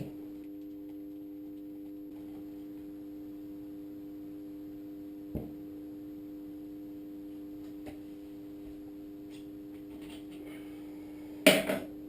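A steady background hum, one held tone with a few fainter tones above it. A small knock comes about halfway through, and a loud short clatter near the end, as during hand work on a fork leg at a workbench.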